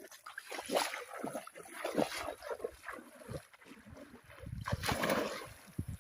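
Water splashing and sloshing in irregular bursts as hands work through shallow water, loudest for about a second shortly before the end.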